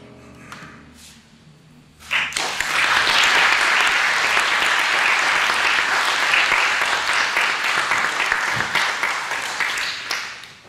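A grand piano's last chord rings and dies away. Then, about two seconds in, an audience breaks into applause that lasts about eight seconds and fades out near the end.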